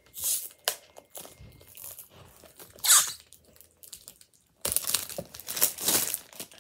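Crinkling and tearing of a footy trading card pack's wrapper as it is opened by hand: a few short rustles, then a longer stretch of dense crinkling in the last two seconds.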